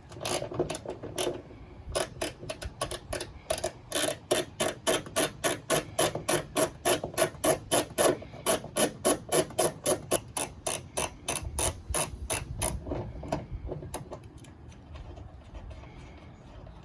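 Hand ratchet wrench clicking in quick, even back-swings, about three a second, as it undoes 10 mm bolts. The clicking slows to a few scattered clicks near the end.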